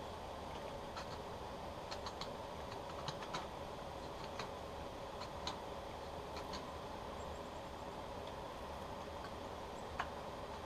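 A hand carving blade cutting into a hard rock maple burl: scattered sharp clicks and small scrapes at irregular intervals as shavings come off, over a steady background hiss.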